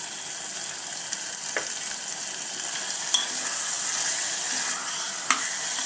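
Mutton and tomatoes sizzling steadily in oil in a cooker pot as the meat cooks in its own juices, with a few light clicks.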